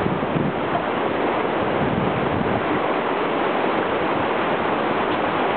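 Creek water rushing over a small waterfall and shallow sandstone ledges: a steady, even rush with no break.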